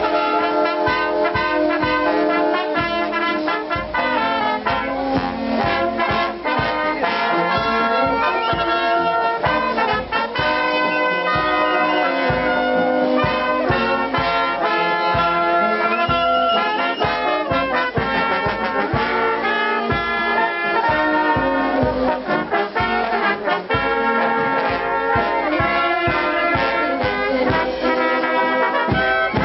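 Brass band music: trumpets and trombones playing over a steady beat.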